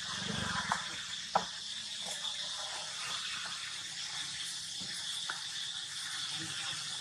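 Steady high-pitched hiss of outdoor background noise, broken by a few sharp clicks, the loudest about one and a half seconds in.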